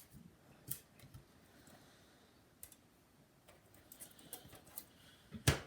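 Scattered light clicks and taps as a laptop is handled on a work surface, with one sharper knock near the end.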